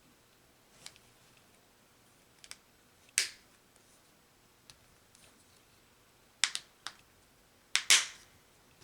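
Sharp plastic clicks and snaps of a Honda key fob's case being pressed back together by hand, about eight clicks spread a second or so apart, the loudest a little after three seconds and near the end.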